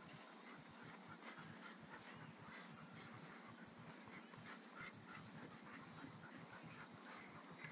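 Faint, quick panting from leashed dogs on a walk, a husky mix and a yellow Labrador among them, as a run of short, repeated breaths.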